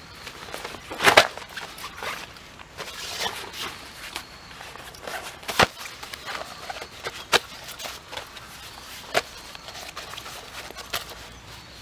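Scattered sharp clicks and knocks, irregular and a second or two apart, the loudest about a second in, over a faint steady high whine.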